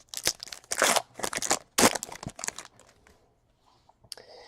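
Trading card pack wrappers crinkling and tearing while packs are opened and cards handled, in a run of quick rustles over the first two and a half seconds.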